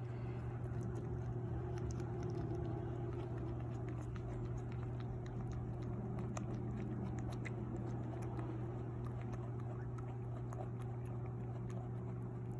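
A pet dog chewing and crunching food, with many small sharp clicks scattered throughout, over a steady low hum.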